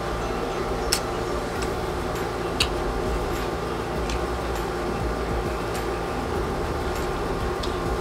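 Steady hum of a room air conditioner, with a few short, sharp clicks from chewing crisp unripe mango. The two loudest clicks come about one second in and two and a half seconds in.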